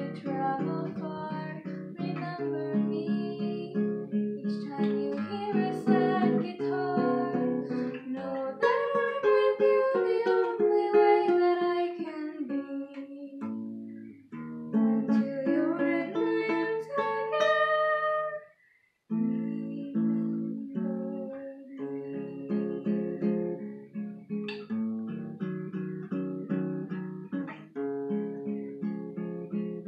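Classical guitar being fingerpicked as accompaniment, with a woman's voice singing a slow melody over it through the middle. The sound cuts out abruptly for a moment about two-thirds of the way through, then the guitar picks up again.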